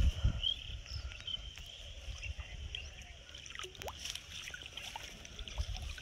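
Quiet riverbank ambience: a steady low rumble with faint short chirps and scattered light clicks, and no single loud event.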